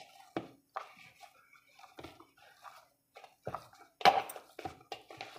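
Hands kneading soft, oiled dough in a bowl: irregular wet squelches and soft knocks, the loudest about four seconds in.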